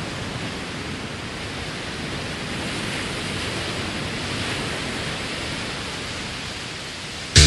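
Steady, even rushing noise, swelling slightly toward the middle, as the song's intro. Right at the end a heavy rock band with distorted guitars and drums crashes in abruptly and much louder.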